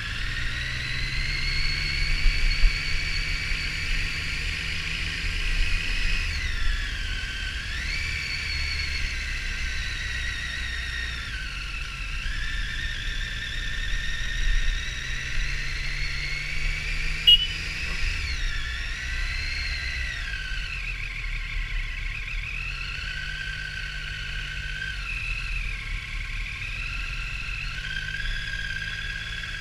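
Triumph Street Triple R's three-cylinder engine heard while riding. Its whine rises and falls several times with the throttle, over a low rumble of wind and road.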